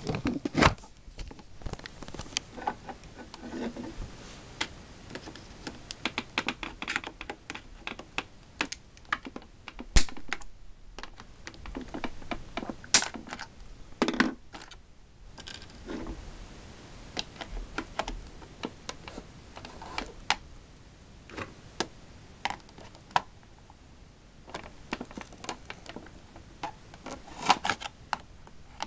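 Wire cutters snipping and twisting the wire ties off the metal tie-down straps on the bottom of a cardboard model box: a long run of irregular clicks and taps, with a few louder knocks as the box is handled on a wooden table.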